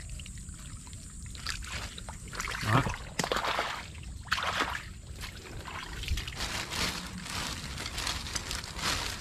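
Hands splashing and scooping in shallow muddy water, an irregular run of sloshes and trickles with the loudest splash about three seconds in.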